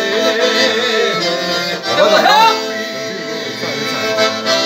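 Piano accordion playing a folk tune in sustained chords, with a short vocal cry that slides up and down about two seconds in.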